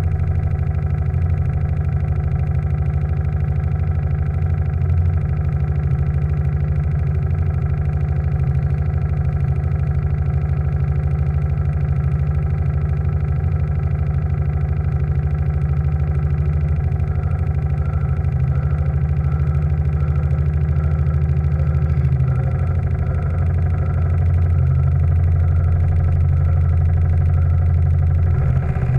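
The steam launch's steam engine running steadily, a low, even hum with a fast, even beat.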